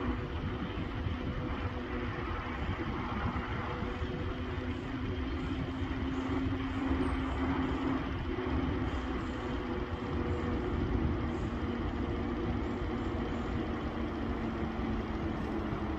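Car driving along a road: steady engine hum with tyre and road noise.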